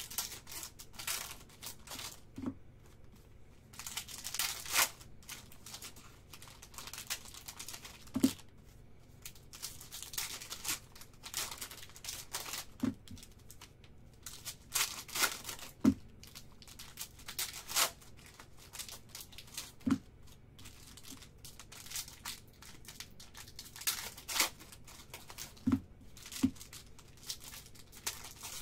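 Foil trading-card packs being torn open and peeled apart by hand, the wrappers crinkling and crackling in irregular spurts, with cards handled between them. A few short soft knocks are scattered through it.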